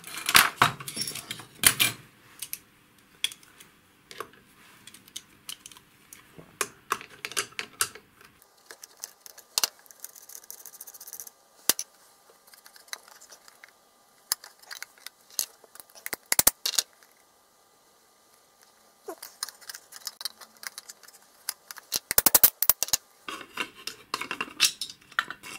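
Clicks, metal clinks and scraping of a small metal-cased aircraft instrument being taken apart by hand: the rear circular connector coming off and the mechanism sliding out of its cylindrical case. The noises come in scattered bursts, with a quiet stretch after the middle and a quick run of clicks near the end.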